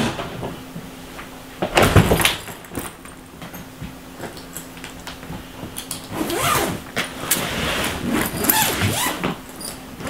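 The zipper of a hard-shell suitcase being pulled open in several long sliding strokes from about six seconds in, after a thump about two seconds in.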